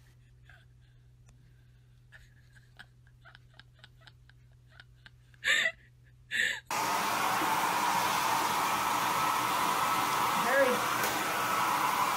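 A handheld hair dryer starts suddenly about seven seconds in and blows steadily. Before it there is a quiet stretch with faint ticks and two short loud bursts.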